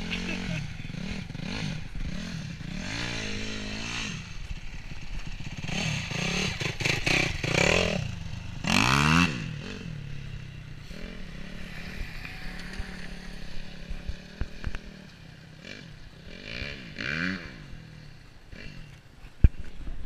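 Dirt bike engine revving up and down over and over as it is ridden across muddy ground, loudest about nine seconds in and fading as it moves off. A single sharp click near the end.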